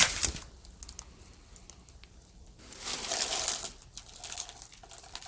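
Crunching and rustling of footsteps and movement over broken floorboards and debris: a sharp knock at the start, small clicks and crackles, then a longer rustling scrape about three seconds in.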